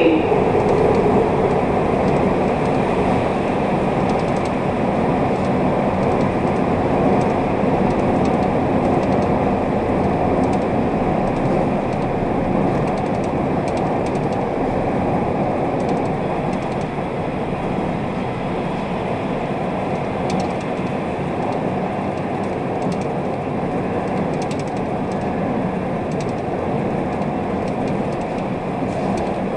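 Metro train running between stations, heard from inside the car: a steady rumble of wheels on rail and traction motors. It eases off slightly over the first half and then holds level, with a few faint clicks.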